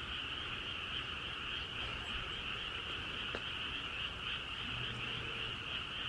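Frogs calling together in a dense, steady chorus, a continuous high-pitched din with no breaks.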